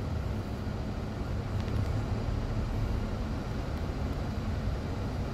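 Steady low rumble of a car heard from inside its cabin as it rolls slowly forward.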